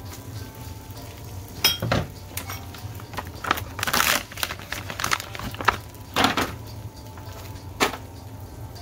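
Kitchen handling sounds at the stovetop: a plastic spatula tapping and scraping in a cast iron skillet and a plastic package of sliced cheese crinkling, heard as a scattered run of sharp clicks and rustles over a low steady hum.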